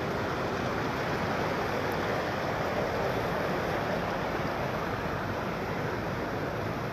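Floodwater of a swollen stream rushing steadily.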